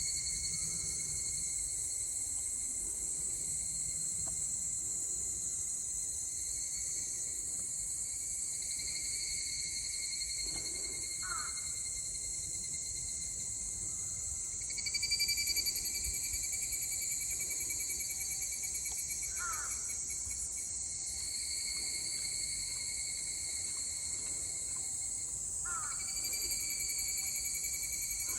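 Evening cicadas (higurashi, Tanna japonensis) singing in a chorus, overlapping high ringing calls that swell and fade in long phrases. A few short lower chirps cut through about 11, 19 and 26 seconds in.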